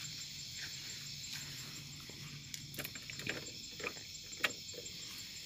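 A steady night chorus of crickets, with scattered soft clicks and taps through the middle and one sharper tap a little before the end.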